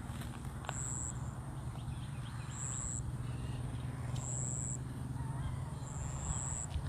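Outdoor morning chorus: an insect giving high-pitched chirps about half a second long, repeating every second and a half or so, with faint bird calls, over a steady low rumble of wind on the microphone.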